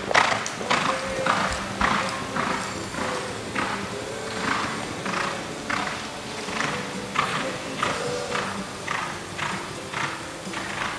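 A reining horse loping on arena dirt: rhythmic hoofbeats, about two strides a second. Music plays faintly behind.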